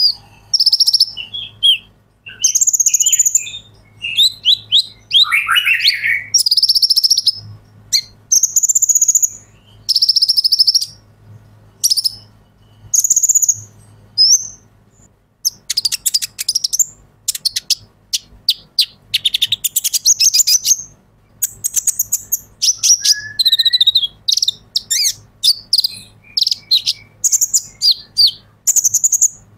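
Male Van Hasselt's sunbird (kolibri ninja) singing: short, high, rapid twittering phrases repeated every second or two with brief pauses between them.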